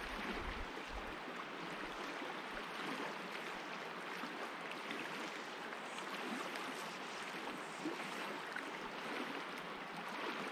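A river's current flowing steadily: an even rush of water.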